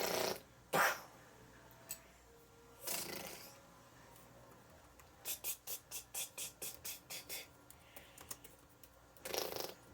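A child's mouth-made sound effects for toy planes: a few breathy whooshes, and about halfway through a quick run of about a dozen short 'ch' bursts, like machine-gun fire.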